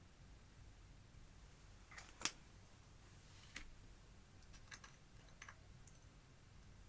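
Clear slime being handled, with eyeshadow being worked into it: a few short sticky clicks and pops over a quiet background. The loudest pop comes a little after two seconds in, with three fainter ones over the next few seconds.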